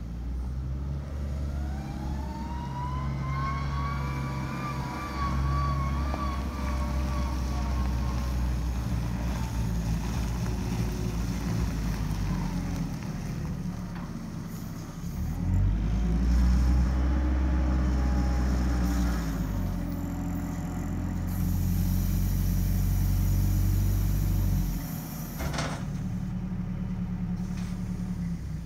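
Caterpillar 902 compact wheel loader's diesel engine running as the machine drives and manoeuvres. A whine rises and falls in pitch as it gets moving, and again midway. A hiss follows, then a single clunk a few seconds before the end.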